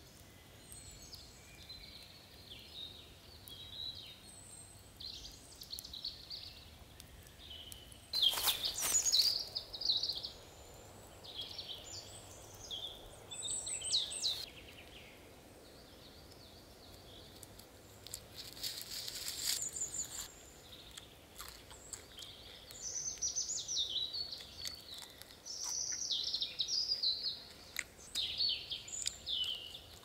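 Small forest birds chirping and singing, with short calls coming and going throughout, over faint scattered clicks. A louder noisy burst comes about eight seconds in and lasts a second or two.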